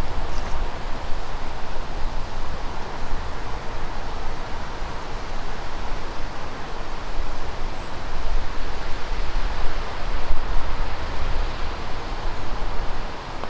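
Wind blowing across the microphone on an open golf course: a steady rushing noise with an uneven low rumble.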